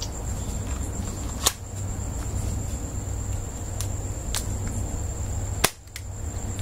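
CO2 airsoft pistol firing BBs with a drinking straw stuck in the muzzle as a makeshift silencer: a few sharp pops spaced a second or more apart, the loudest about a second and a half in.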